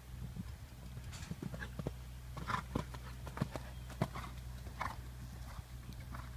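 Hoofbeats of a horse moving around a sand arena: a run of soft, uneven thuds on the sand footing.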